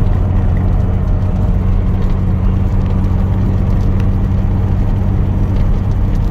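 TVR Tuscan's straight-six engine running at a steady pace with road noise, heard from inside the cabin.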